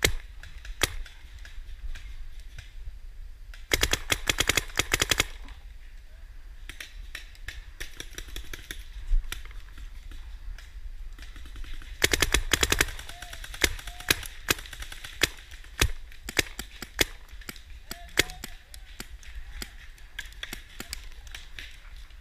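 Paintball markers firing: a rapid string of shots about four seconds in and another about twelve seconds in, with scattered single shots in between.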